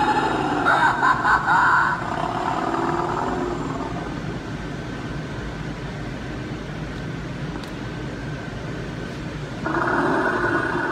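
Recorded motorcycle engine sound effect played through the small speaker of an animatronic Motorcycle Riding Reaper Halloween prop. It revs loudly for about the first two seconds, then runs steadier and quieter. A louder sound comes in near the end.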